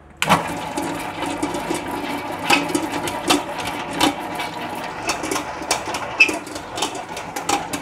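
Stand mixer switching on at medium speed about a third of a second in, its motor humming steadily while the dough hook kneads bread dough and knocks it repeatedly against the stainless steel bowl.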